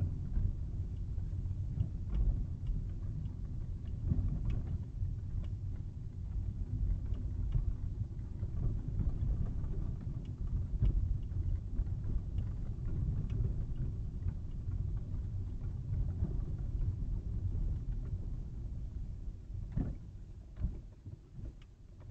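Low, steady rumble of a car being driven, road and engine noise heard inside the cabin, with occasional light knocks. It quietens near the end.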